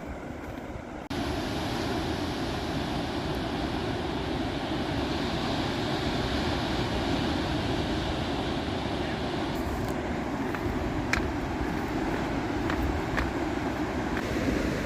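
Steady rushing of ocean surf, starting suddenly about a second in, with a few faint clicks in the second half.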